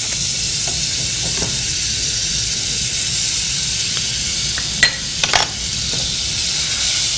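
Butter sizzling as it melts in a hot saucepan, a steady hiss, with a few short knocks about five seconds in.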